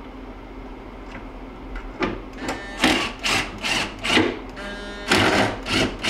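Makita cordless drill/driver driving a screw, its motor running in a quick series of short pulses from about two seconds in, with a whine on some of them. A steady low hum sits under it.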